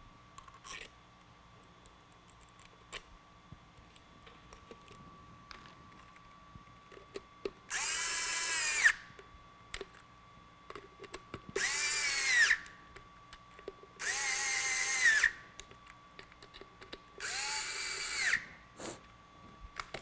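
Cordless electric screwdriver running in four short bursts of about a second each, a motor whine driving the bolts into the EVLS lock's manifold on a prosthetic socket, with small handling clicks between the bursts.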